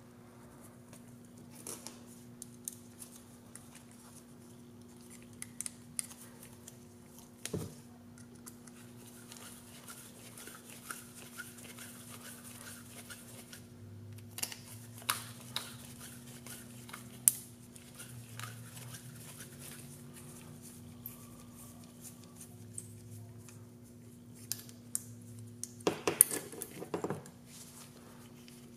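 Scattered light clicks and clinks of small drone-frame parts (arms, spacers, plates and screws) being handled, stacked and set down on a table, with a cluster of clicks near the end. A faint steady hum runs underneath.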